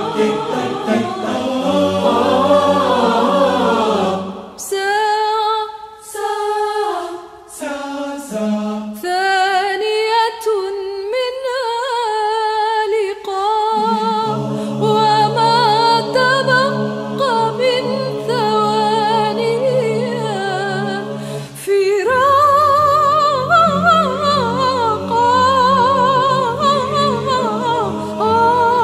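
Mixed choir singing a cappella, in chords of several voices. About four seconds in it thins to a few voice lines with vibrato; from about fourteen seconds low held notes sound under a moving melody, and the full choir comes back in about 22 seconds in.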